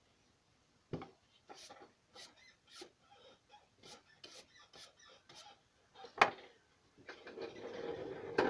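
A hand brushing and rubbing across sketch-pad paper: a string of short scratchy strokes, a sharp tap a little after six seconds in, then a longer continuous rub near the end.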